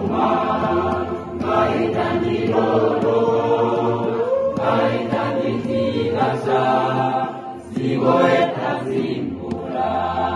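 A choir singing live, many voices together, with a brief dip in loudness about seven and a half seconds in.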